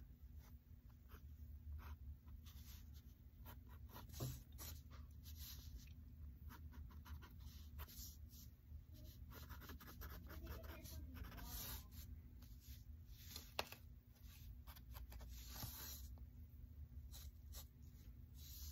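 Sharpie marker scratching on sketchbook paper in many short, quick, faint strokes as fur lines are drawn.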